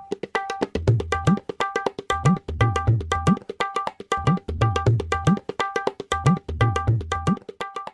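A fast tabla rhythm: sharp ringing strokes on the small drum over deep bass-drum strokes that bend upward in pitch, stopping just before the end.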